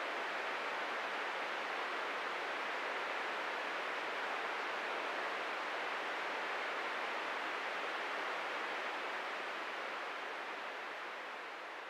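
Steady hiss of static from an old console television left on an empty channel, easing off slightly near the end.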